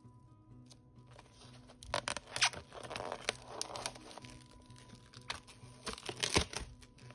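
Plastic cling film being peeled and torn off a plastic meat tray, crinkling and crackling in two bouts, about two seconds in and again near the end.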